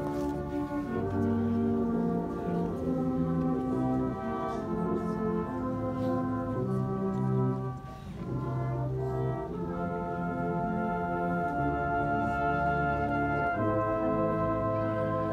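Brass band playing a slow piece in held chords, with a short break about eight seconds in.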